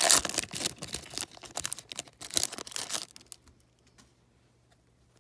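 Foil trading-card pack wrapper crinkling and rustling as the cards are pulled out of it. The crinkling stops about three seconds in, leaving only a few faint clicks of cards being handled.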